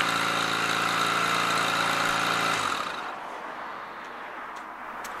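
Honda CD250 motorcycle engine idling steadily after a start from two months' standing, then stopping a little past halfway, leaving only faint background hiss.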